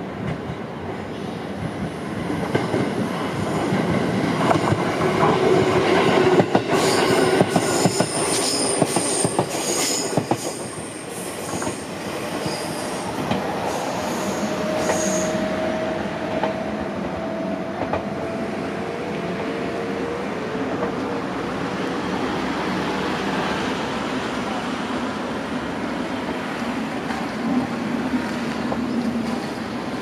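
A JR Central electric commuter train running through the level crossing: loudest about six to ten seconds in, with rapid clicking of wheels over rail joints and high wheel squeal. It then settles to a steadier rumble as it runs round the curve, with a held wheel squeal a few seconds later.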